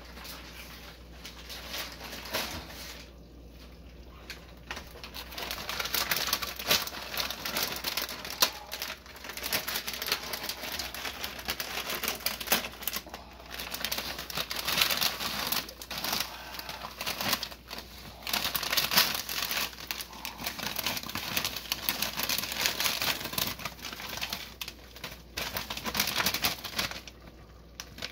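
Clear plastic bag of dried rice vermicelli (bihon) crinkling and rustling in irregular bursts as it is handled and blocks of noodles are pulled out. The crinkling is mostly from a few seconds in.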